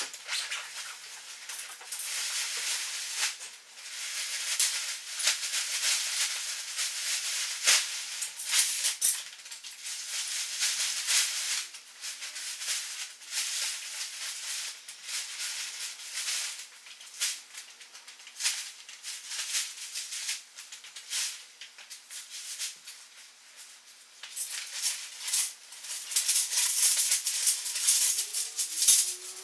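Nylon tent fabric and its stuff sack rustling and crinkling as they are unpacked, shaken out and spread over a hard floor, in uneven bursts of crackling with a quieter stretch shortly before the end.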